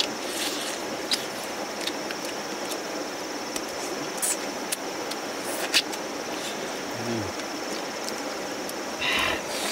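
Outdoor forest ambience: an even hiss with a steady, thin high-pitched insect drone, and scattered small clicks and smacks from people eating cooked fish with their hands. A short low falling call sounds about seven seconds in, and a brief louder sound comes near the end.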